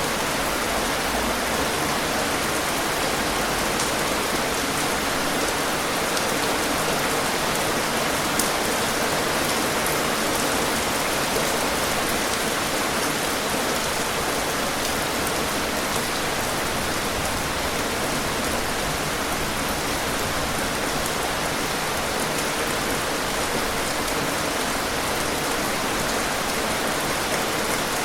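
Steady rain falling, an even hiss of many drops hitting a surface, with occasional faint individual drop ticks.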